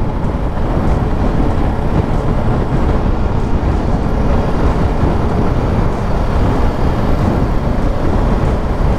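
BMW G310 GS single-cylinder motorcycle cruising at a steady speed: wind rushing over the on-board microphone over a low, even engine and road rumble.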